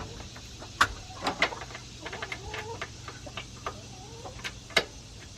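Backyard hens clucking softly, with a few sharp clicks and knocks scattered through, the loudest a little under a second in and near the end.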